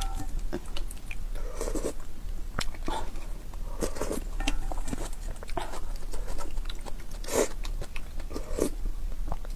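A person slurping soup broth from a ladle and chewing, with several short slurps and many small wet mouth clicks.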